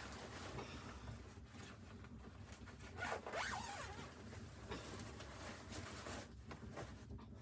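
Scratchy rasping and rustling of something being handled, in several strokes. It is loudest about three seconds in and stops about a second before the end.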